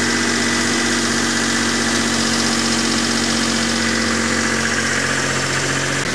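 Three-cylinder engine running steadily at a fast idle with no load, soon after a hard cold start at about minus six degrees.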